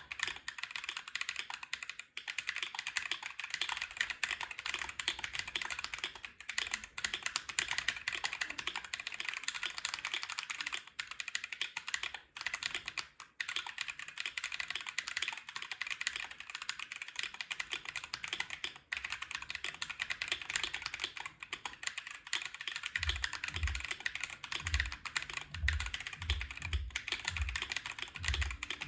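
Continuous fast typing on a KBD67 Lite aluminium mechanical keyboard with unlubed, unfilmed Neapolitan Ice Cream switches on an FR4 plate, with GMK keycaps: a dense run of key clicks with brief pauses. From about two thirds of the way in, deeper thumps come in among the clicks.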